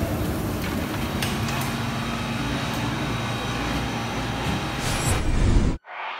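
Steady low rumble of a motor vehicle engine running amid street noise, with a few light clicks. It swells briefly, then cuts off abruptly near the end.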